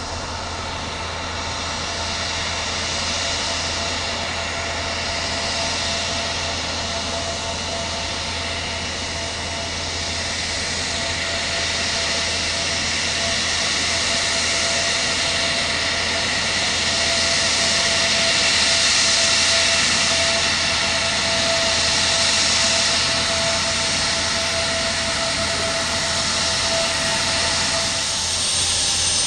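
Twin turbofan engines of a taxiing J-AIR Embraer E-Jet running with a steady jet whine and rush. It grows louder as the aircraft comes closer, peaking about two-thirds of the way through.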